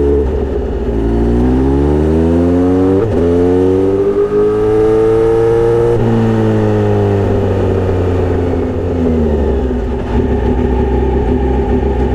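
Kawasaki Z900RS inline-four engine through a Misty Kintaro short-pipe exhaust with a straight-through 70 mm silencer, loud. The pitch climbs as it accelerates, with a short break about three seconds in, until about six seconds in, then falls away and settles to a steady low note.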